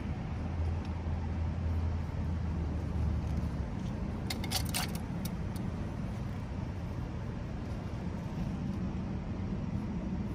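Cars passing on the street, a steady traffic noise with a low engine rumble for the first three or four seconds. About four and a half seconds in comes a brief jangle of light clicks.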